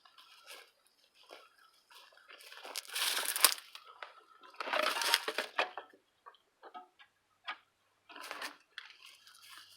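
Footsteps crunching and rustling over dry debris in irregular steps, loudest in two bursts about three and five seconds in, with scattered sharp crackles after.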